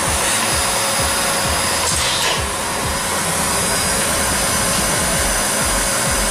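Vacuum cleaner running steadily with a constant whine on top of its rushing air, with a brief sharper rush about two seconds in, typical of something being sucked up the nozzle.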